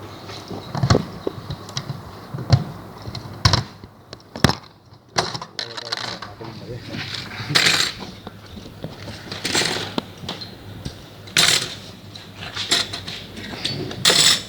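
Metal parts and tools clinking and knocking against each other in irregular, sharp taps, with a few short scraping bursts.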